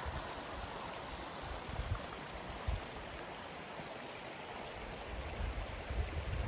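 Steady rush of flowing water from a stream or waterfall, with wind buffeting the microphone in irregular low gusts.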